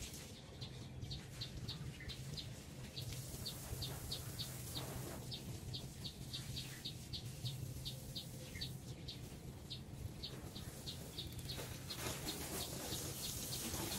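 A bird repeating a short high chirp about three times a second, over a steady low hum. Near the end, water spraying from a hose joins in.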